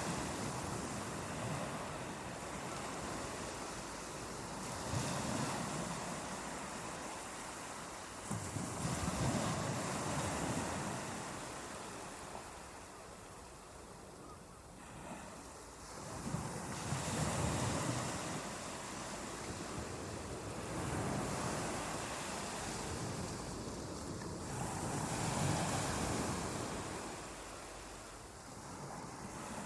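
Ocean waves breaking and washing up a beach in repeated surges every few seconds, each swelling and then fading back into a steady rush of surf.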